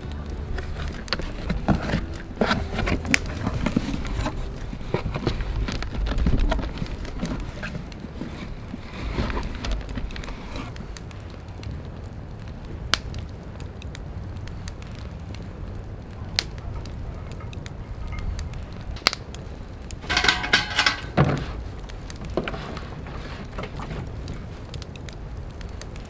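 Wood fire crackling in a fire pit, with scattered sharp pops. A short louder noise comes about twenty seconds in.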